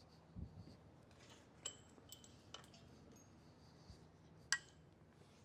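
A few light metallic clinks and taps of steel bolts and tools against the billet aluminium bracket parts, with a dull thud shortly after the start. The sharpest clink, about four and a half seconds in, rings briefly.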